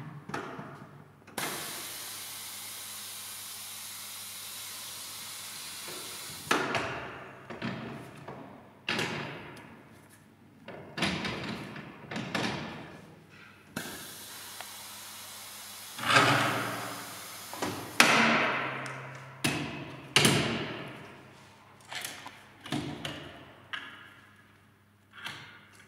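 SICE S300 tyre changer in use: a steady hiss of compressed air for about five seconds near the start and again for a few seconds midway, between repeated metal clunks and thuds as the wheel is set on the turntable and clamped.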